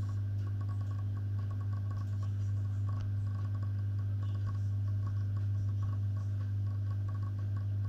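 Reef aquarium pumps humming steadily and low, with faint scattered crackling ticks over the hum.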